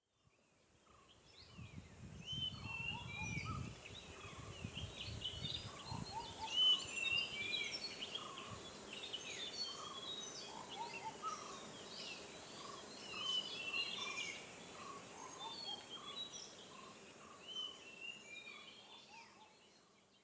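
Several forest birds calling at once: many overlapping high chirps and short whistled notes, with a lower repeated note beneath them. A low rumble sits under the calls for the first few seconds.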